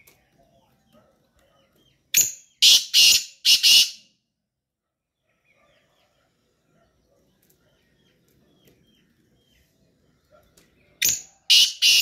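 Black francolin (kala teetar) calling: a loud, harsh phrase of three or four grating notes about two seconds in, and the same call again near the end.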